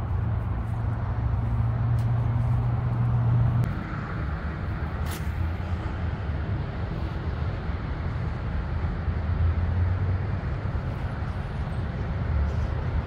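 Road traffic: a steady low rumble of passing cars and trucks, loudest for the first three or four seconds and then easing, with a brief sharp click about five seconds in.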